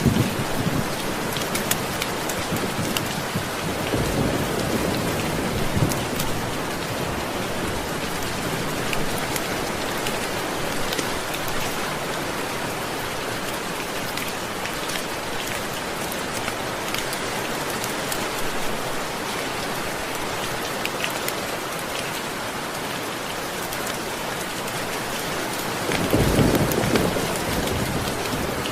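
Steady rain falling, with low rolls of thunder rumbling about four seconds in and again near the end.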